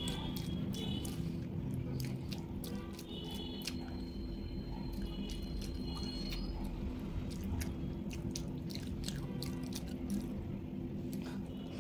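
Close-miked eating by hand: chewing and wet mouth clicks, with fingers squishing and gathering rice and egg curry on a plate. The clicks are short and scattered throughout, over a steady low hum.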